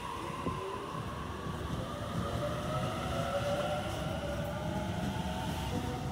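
Sydney Trains double-deck electric train pulling away, its traction motors whining in several tones that climb slowly in pitch as it gathers speed. Under the whine is a steady rumble of wheels on the rails.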